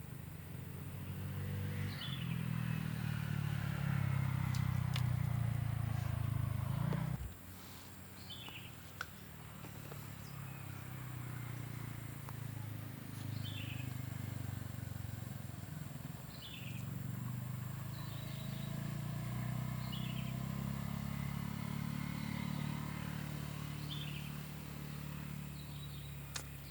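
A low engine hum from a motor running at a distance, cutting off suddenly about seven seconds in and building again later. Over it, a small bird gives short falling chirps every few seconds.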